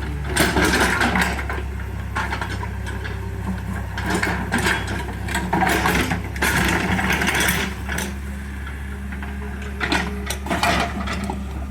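JCB 3DX backhoe loader's diesel engine running steadily, with irregular bursts of louder mechanical clattering from the working machine, about four of them, each lasting around a second.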